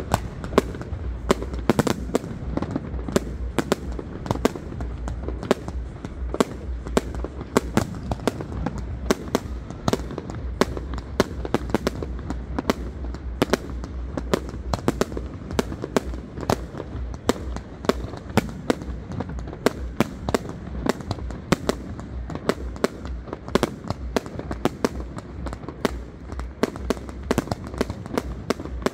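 Fireworks display: aerial shells going off in rapid succession, several sharp bangs a second over a continuous low rumble.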